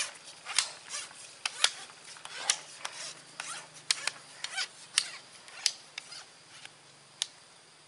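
Sharp, irregular clicks and small splashes, about twenty over several seconds, as a hooked climbing perch is landed from the swamp water; they stop near the end. A faint steady low hum runs underneath.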